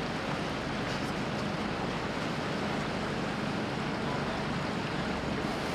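A motor boat under way: steady low engine hum with the wash of water.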